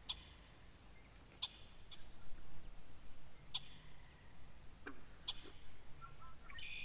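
Faint, sharp bird chirps repeating at uneven gaps of a second or two, with a short buzzy call near the end.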